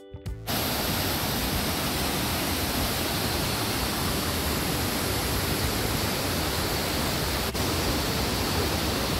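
Waterfall and rapids rushing: a loud, even roar of falling and churning water that starts about half a second in.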